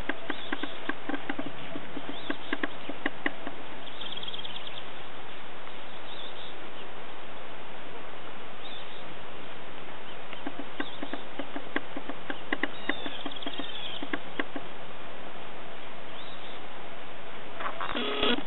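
Steady outdoor background hiss with insects buzzing. Short runs of rapid clicking come and go, along with a few faint high chirps, and there is a brief louder burst near the end.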